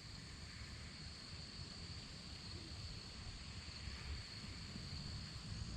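Faint pond-side ambience: insects keep up a steady, thin high drone over a low, uneven rumble.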